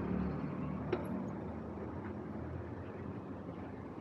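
Street traffic noise: a motor vehicle's engine running, fading over the first second or so, with one sharp click about a second in.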